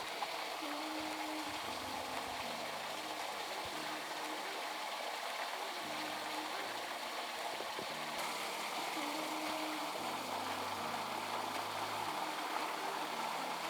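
Waterfall running steadily: a continuous, even rush and splash of falling water.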